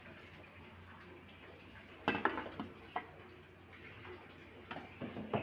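Several sharp clicks and knocks of kitchenware being handled at a gas stove, with a loud cluster about two seconds in, a single knock a second later and another cluster near the end.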